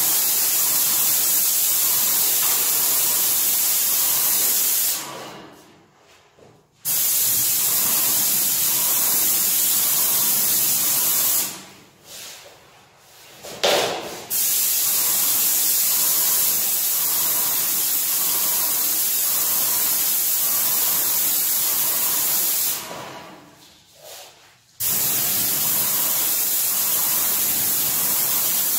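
Yokiji 120 paint sprayer's gun spraying paint in a loud, steady hiss. It stops three times for about two seconds as the trigger is released, dying away and then starting again abruptly. A short knock comes during the second pause.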